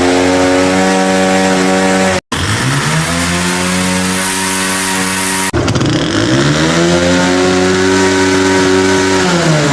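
Single-cylinder four-stroke engine of a 70cc CD70 motorcycle, two years in use, revved three times. Each rev climbs quickly and holds at a steady high pitch. The sound cuts off abruptly after the first two revs, and the last one drops back near the end.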